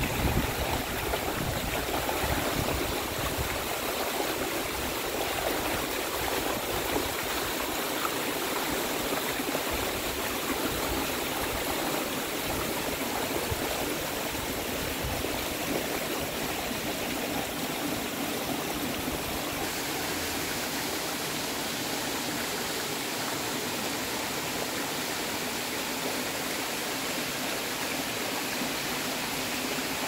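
Steady rush of white water as a mountain stream pours over boulders at the top of a small waterfall.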